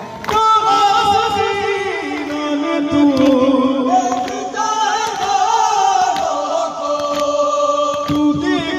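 A man chanting a noha, a mourning lament, in long held notes through a microphone, with other voices joining in. Short slaps, typical of chest-beating (matam), come now and then under the voices.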